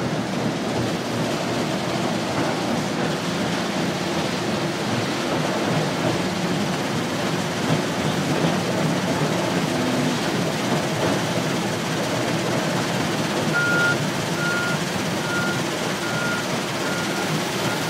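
Wheel loader's diesel engine running under load as it works a gravel pile. About three-quarters of the way in, its reversing alarm starts beeping steadily, a little more than once a second, as the machine backs out with a full bucket.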